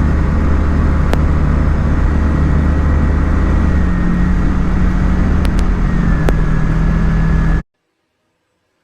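Small aeroplane's engine droning steadily as heard in the cockpit, with a few sharp clicks; its note dips slightly about six seconds in. Near the end the sound cuts off abruptly to silence.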